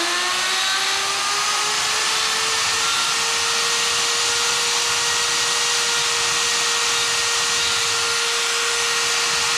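Electric die grinder with a carbide burr running, deburring the fly-cut valve reliefs on an aluminum piston. Its motor whine climbs as it comes up to full speed over the first couple of seconds, then holds steady.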